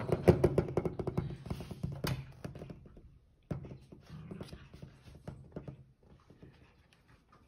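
Puppies' claws and paws tapping and scratching at a glass door in quick, irregular clicks, with a short pause about three seconds in, dying away about six seconds in.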